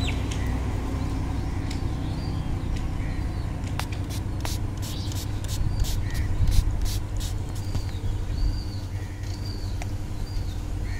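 Birds chirping in short calls over a steady low rumble, with scattered sharp clicks throughout.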